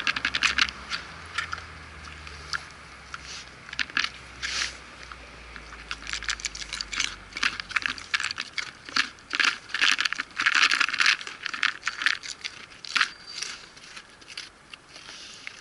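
Wild boar crunching dry pellet food from a plastic bowl: a quick, irregular run of crisp crunches and clicks, thickest in the middle and thinning out toward the end.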